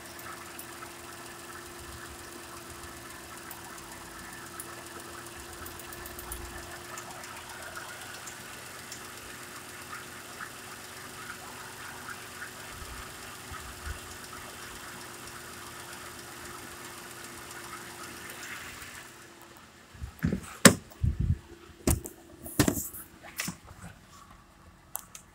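2009 Mazda CX-9's 3.7-litre V6 idling steadily under the open bonnet, a low even hum with a steady tone. About 19 seconds in the engine sound drops away and a series of loud, sharp thumps and knocks follows.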